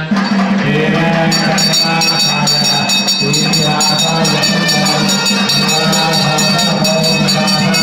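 A hand bell is rung rapidly and without a break during the aarti. The ringing starts about a second in, over a steady low drone and chanting or singing.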